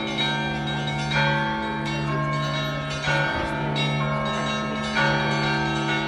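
Russian Orthodox church bells ringing: several bells of different pitch, the higher ones struck about once a second over the lingering hum of the lower ones.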